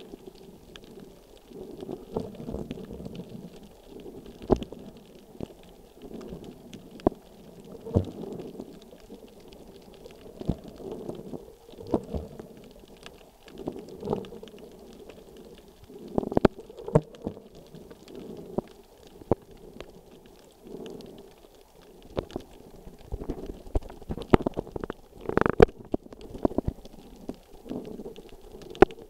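Muffled underwater sound picked up by a snorkeler's underwater camera: low sloshing surges every second or two, with scattered sharp clicks and knocks, two of them louder, past the middle and near the end.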